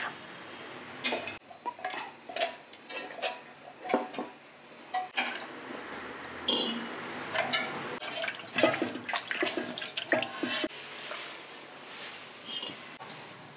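Steel spoon scraping and tapping against a pan and a steel mixer jar while fried masala is spooned out. The clinks and knocks come irregularly, some briefly ringing.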